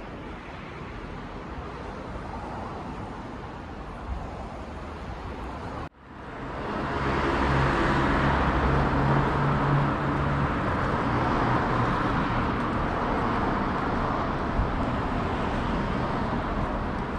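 Outdoor street noise. About six seconds in the sound drops out for an instant and comes back louder as road traffic noise, with a motor vehicle's low engine hum for a few seconds.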